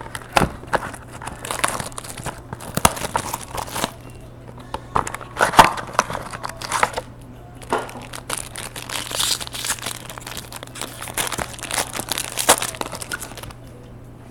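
Crinkling and tearing of a trading-card pack's wrapping as it is opened and the cards are handled, in quick irregular rustles that stop shortly before the end. A faint steady low hum runs underneath.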